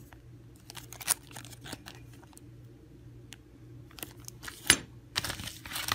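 Packaging being handled in an unboxing: scattered sharp clicks and rustles, with the loudest click near the end, followed by a run of crinkling.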